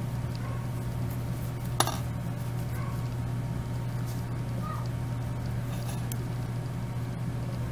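Quiet handling of yarn and a metal yarn needle while stitching a crochet piece, over a steady low hum, with one sharp click about two seconds in.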